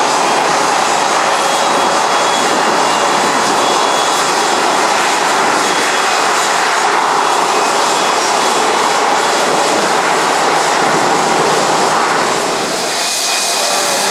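Rolls-Royce RB211-535 turbofan engines of a Boeing 757-200 running steadily as the airliner rolls past close by: a loud, even jet noise with a faint high whine on top, easing slightly near the end.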